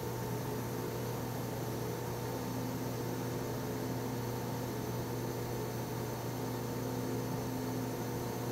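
Steady hiss of compressed air fed through a leak-down tester into a cylinder of a Chevrolet 396 big-block V8, over a constant hum with a faint tone that comes and goes. The air is leaking past piston rings that the mechanic bets have lost their tension.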